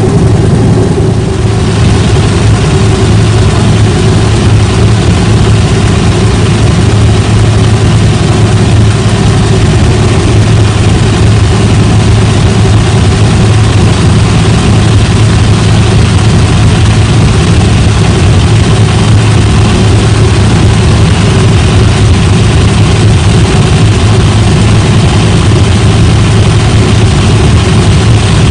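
Loud, steady drone of a helicopter in flight, heard from inside the cabin: a strong low hum from the engine and rotor under a constant hiss.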